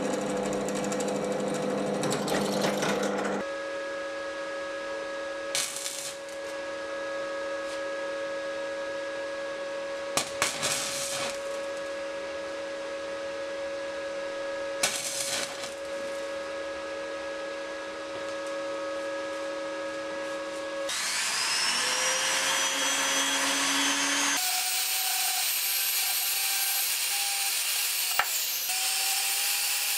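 Metalworking power tools one after another: a drill press cutting into steel, then a steady electrical hum with three short crackling stick-welding arc bursts, then a small high-speed rotary tool spinning up with a rising whine and running steadily at a high pitch.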